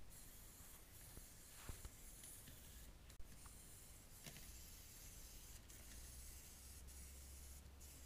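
Near silence: faint room hiss, with two soft short taps or clicks a second and a half apart.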